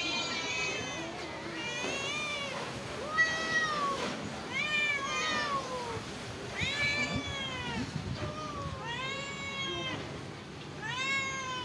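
A ginger tabby cat meowing over and over, about seven drawn-out meows each rising and falling in pitch, a second or two apart. The insistent calling of a hungry stray cat asking for food.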